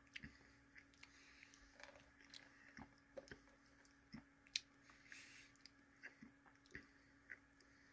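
Faint, scattered mouth clicks and lip smacks from someone tasting a soda, over a faint steady hum.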